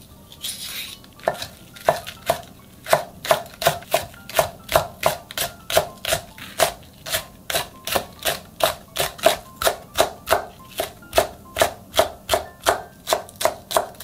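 Chef's knife slicing a Korean green onion (daepa) on a wooden cutting board: a steady run of crisp knife strikes, about three a second, starting about a second in.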